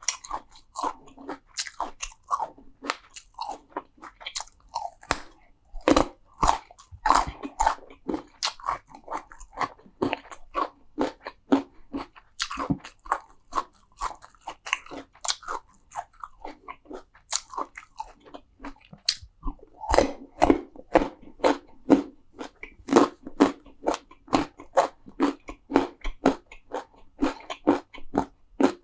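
Close-miked crunchy eating: a person biting and chewing crisp food, with sharp crunches coming steadily, thinning out for a few seconds past the middle.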